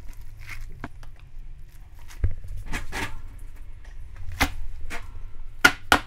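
Gloved hands handling seasoned godeulbaegi kimchi and packing it into a plastic container: scattered rustles and short sharp knocks, the loudest near the end.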